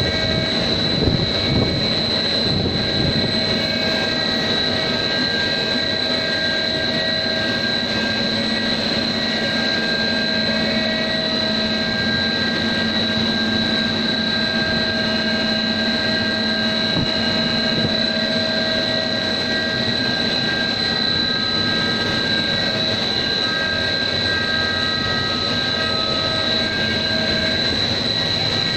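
Pet-treat extrusion line machinery running: a steady mechanical drone with a constant high-pitched whine over it.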